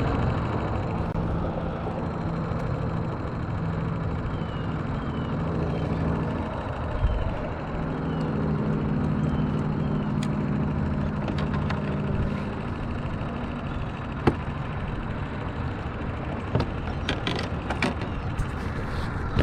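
Boat motor running steadily, its pitch rising a little about eight seconds in.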